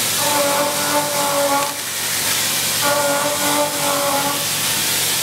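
CNC vertical mill's end mill cutting a stainless steel putter head: a pitched cutting whine comes in two passes of about a second and a half each, over a steady high hiss.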